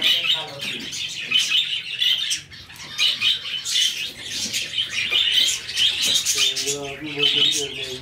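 A flock of budgerigars chattering: a dense, continuous mix of high chirps, squawks and warbles, with a lower warbling voice joining in about six seconds in.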